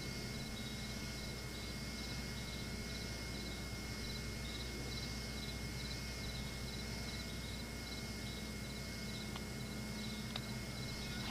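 Insects chirping in a steady, pulsing rhythm of short high chirps, over the constant hum and hiss of a VHS camcorder's soundtrack. A couple of faint clicks come near the end.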